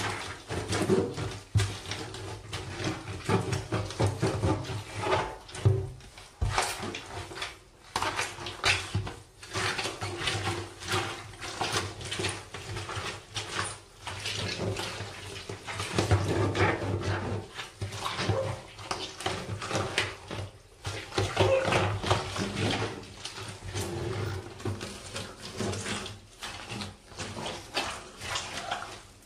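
Rubber boots trampling wet lettuce and other food on a bathtub floor: a continuous, irregular run of squashing, crunching steps.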